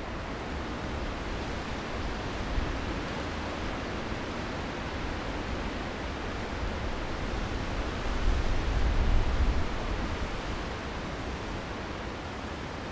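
Steady outdoor wind noise with a low rumble of wind buffeting the microphone, swelling in a gust a little after the middle.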